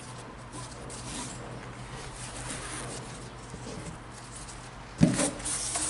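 Faint scratchy rustling of a hand handling the egg-crate foam lining of a shoe box, then a sudden louder knock about five seconds in.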